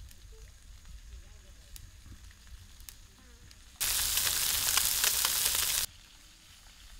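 Small fish and fish heads frying in hot oil in a pan, being browned hard for a fish broth. The sizzle is faint at first, loud for about two seconds in the middle, then faint again, starting and stopping abruptly.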